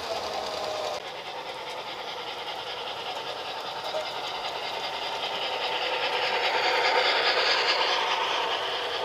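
Three-rail O-gauge model trains running on track, with wheels rumbling and clattering. After a change about a second in, the sound grows louder and is loudest about seven seconds in, as a locomotive passes close by.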